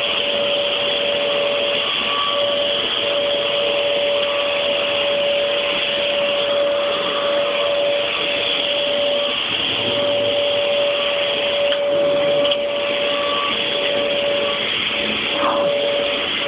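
Vacuum cleaner running steadily with a constant whine.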